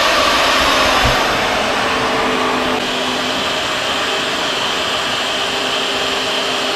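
Magnetic drill press's electric motor running steadily, its bit cutting into a steel plate. A dull knock about a second in.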